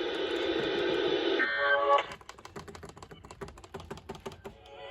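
Radio hiss for about a second and a half, then a brief buzzing tone, then rapid irregular clicking.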